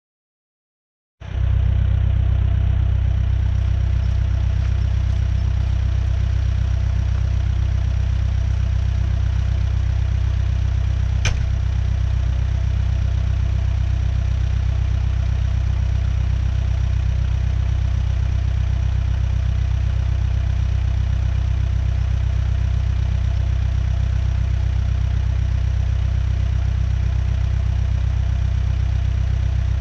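New Holland B100B backhoe loader's diesel engine running steadily at a constant speed, with a deep low hum; it cuts in after about a second of silence, and a single brief click sounds about eleven seconds in.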